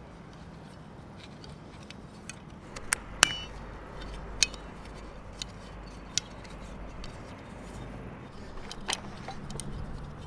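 A handful of sharp clicks and light metallic clinks from small hard objects being handled, the loudest about three seconds in with a brief ring after it, over a faint low hum.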